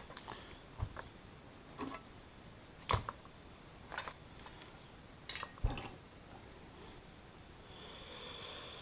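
Hand tools clicking and knocking against the metal of a chainsaw's oil pump as a tight part is worked loose. The scattered light clicks are broken by three sharper knocks, about one, three and five and a half seconds in.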